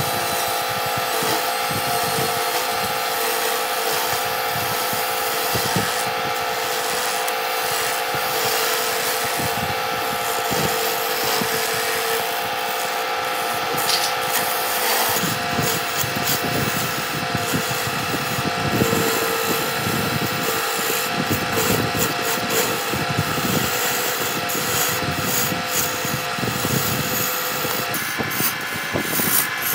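Wood lathe running with a steady motor whine while a hand-held turning chisel cuts into the spinning wooden blank, a continuous scraping rasp. The cutting noise grows heavier about halfway through.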